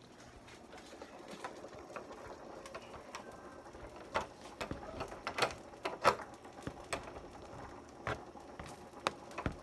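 Scattered light clicks and knocks at irregular intervals, sparse at first and more frequent from about four seconds in, with the loudest knock about six seconds in.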